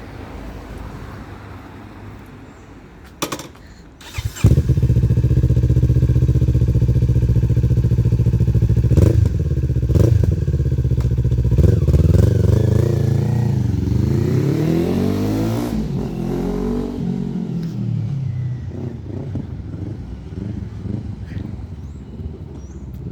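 Kawasaki Ninja 400 parallel-twin with a WR aftermarket exhaust. It comes on suddenly about four seconds in and runs steadily and loudly, then revs up and down through several pitch sweeps as it rides off, fading away near the end.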